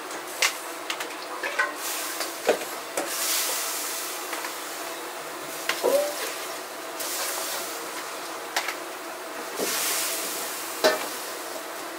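Ramen-kitchen prep work: metal utensils and pots clinking and knocking a dozen or so times, some strikes ringing briefly. Two spells of hissing come about three seconds in and again near ten seconds, over a steady hum.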